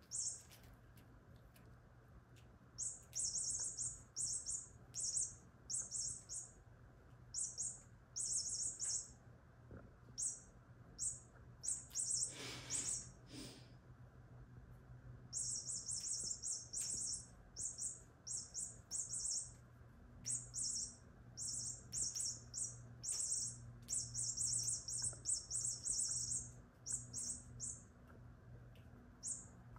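High-pitched chirping in short bursts, coming in irregular runs of several a second, with one louder, fuller rustling burst about twelve seconds in.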